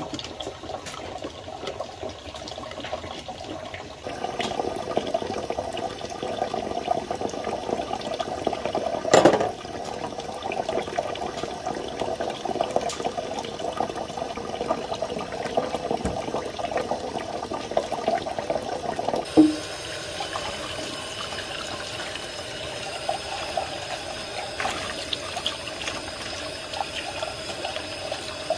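Water running steadily from a kitchen tap into a metal sink while dishes are rinsed and scrubbed by hand under the stream, getting louder about four seconds in. Two short knocks come through, one near the middle and one about two-thirds of the way in.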